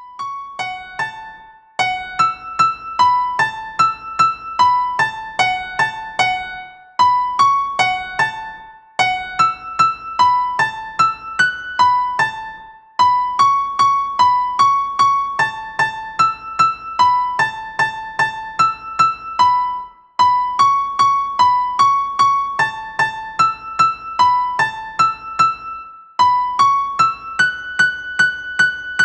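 Background piano music: a light melody of single struck notes, played in short phrases with brief pauses between them.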